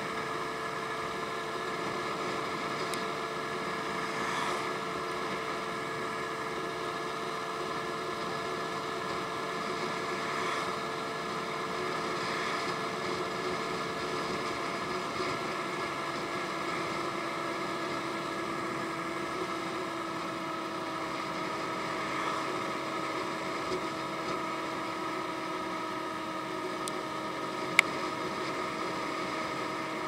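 Honda Ruckus scooter's small four-stroke single-cylinder engine running steadily at cruising speed, with road and wind rush; its pitch eases down a little about halfway through. A single sharp click near the end.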